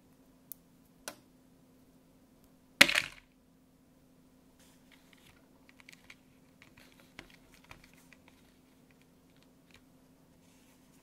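Small clicks as a memory-foam ear tip is pressed onto an AirPods Pro earbud, then one sharp clack about three seconds in. After it come light taps and crinkling from a clear plastic clamshell tray as fingers pick among the spare foam tips.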